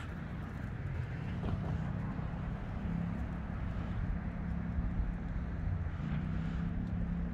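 Steady low rumble of distant city traffic, with a faint constant drone underneath.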